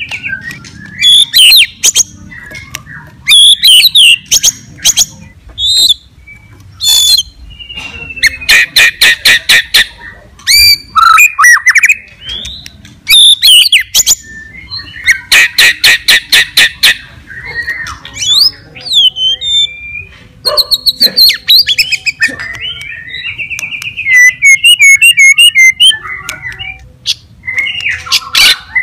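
White-rumped shama (murai batu) singing a loud, varied fighter song: bursts of rapid repeated notes alternating with gliding whistles and harsh notes, the aggressive 'gacor' song used to rouse other shamas.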